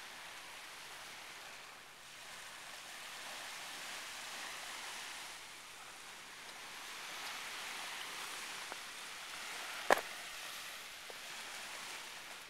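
Small waves breaking and washing up on a sandy beach, a steady hiss of surf that swells and eases every few seconds. A single sharp click about ten seconds in.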